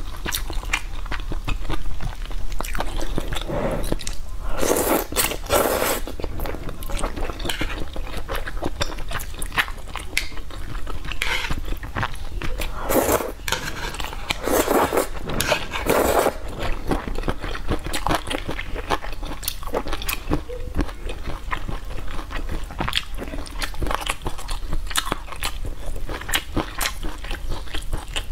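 Close-miked eating sounds of rice noodles in soup (luosifen): slurping, chewing and small clicks of chopsticks and a plastic spoon. The louder slurps come about five seconds in and again between about thirteen and sixteen seconds. A steady low hum runs underneath.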